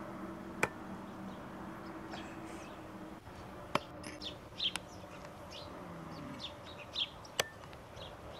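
Meat cleaver chopping chicken feet on a wooden chopping stump: three sharp strikes a few seconds apart. Small birds chirp in between.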